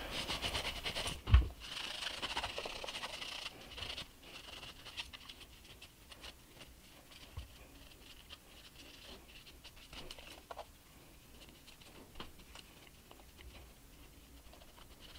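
Paper towel dampened with alcohol rubbing and scratching over a metal-and-leatherette film camera body as it is wiped clean, with small handling clicks. A single loud thump about a second and a half in; after about four seconds the rubbing turns fainter, with scattered light clicks.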